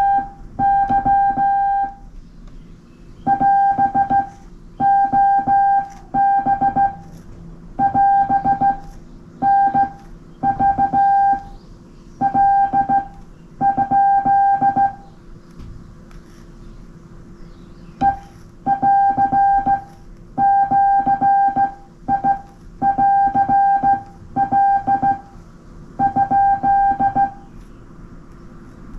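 Hand-sent Morse code on a straight key: the radio's CW sidetone, a steady beep keyed on and off in dots and dashes grouped into characters, with the clatter of the key underneath. The sending breaks off for about three seconds midway, then resumes.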